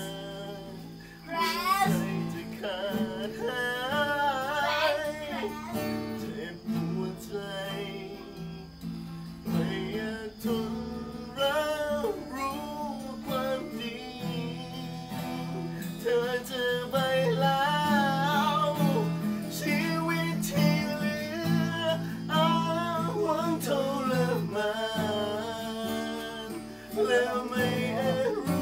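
Acoustic guitar strummed as accompaniment, with a voice singing a wavering melody with vibrato over it.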